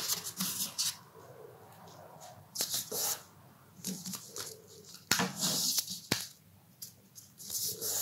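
Sheet of paper being folded and pressed flat on a tabletop, rustling and crackling in about four short bursts as corners are folded in and creased. Two sharp taps come midway.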